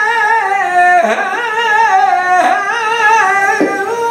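A man singing flamenco cante in one solo voice, drawing out long vowels with wavering, ornamented pitch. The phrases break about every second or so, with the pitch dipping and climbing again at each break.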